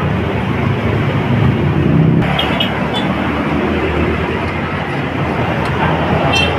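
Yamaha Vega R motorcycle's single-cylinder four-stroke engine running steadily, with a few light clicks.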